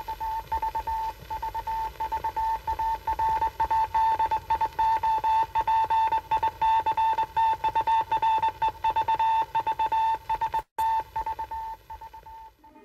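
Morse code beeping from the RKO Radio Pictures opening logo: one high tone keyed on and off in rapid dots and dashes over old film-soundtrack hiss. It breaks off briefly just before the end and stops shortly after.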